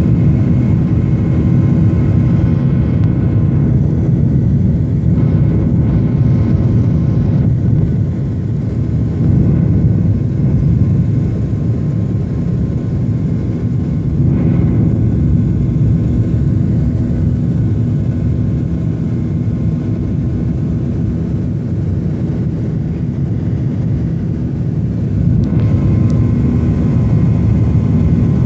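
Jet airliner engines running during takeoff: a steady, loud low rumble with a few faint steady tones above it.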